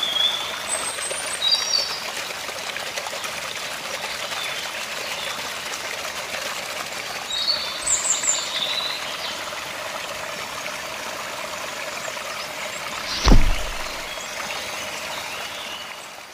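Water trickling and pouring steadily from a small plastic tube into a miniature sand-lined canal, with a few short high bird chirps over it. A single sharp thump about 13 seconds in is the loudest sound.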